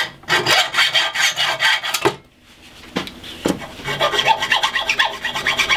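Hacksaw cutting through a brass pin rod clamped in a steel vise. Rapid back-and-forth strokes for about two seconds, a short pause broken by two single strokes, then steady sawing again from about four seconds in.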